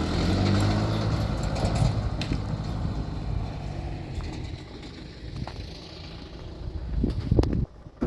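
A motor vehicle's engine running, loudest at first and fading over the next few seconds; a sharp knock near the end, after which the sound drops away suddenly.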